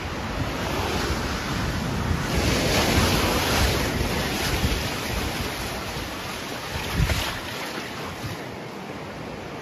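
Rushing, churning muddy water, with wind buffeting the microphone, growing louder a couple of seconds in. A brief low thump about seven seconds in.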